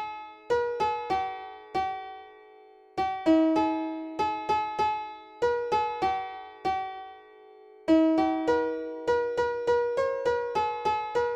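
Solo keyboard in a piano tone playing a slow melody, one note at a time. Each note rings and fades. Brief lulls about two and a half and seven and a half seconds in separate the phrases.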